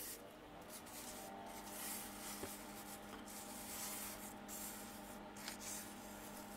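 Fingers handling and turning over a plastic manta ray toy figure, with soft rubbing and scuffing of hand on plastic and a few light ticks. A faint steady hum sits underneath.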